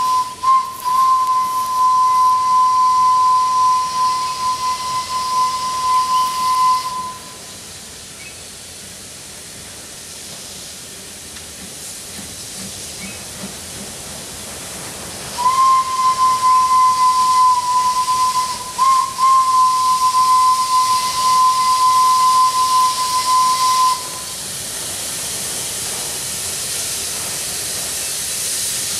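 Steam whistle of the 700 mm gauge Orenstein & Koppel steam locomotive no. 14 blowing two long blasts at one steady pitch, each about seven or eight seconds, with a brief break in the second. After the second blast, the steam hiss of the approaching engine grows.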